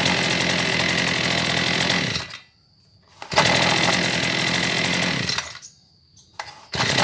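Maruyama AD26AS brush cutter's 26 cc two-stroke engine, warm, running at a high buzz, then dying away and restarting at once on a light pull of the recoil starter, twice over. Each run lasts about two seconds, with about a second of quiet between.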